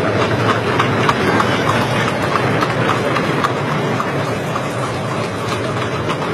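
Horses' hooves clip-clopping in quick, irregular clatter over a steady rumble of carriage wheels on a road: busy horse-drawn traffic.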